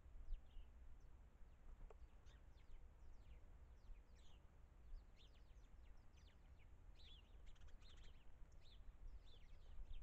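Small songbirds chirping and calling faintly: many short, high, quickly falling notes, busiest from about seven to nine and a half seconds in, over a low steady rumble.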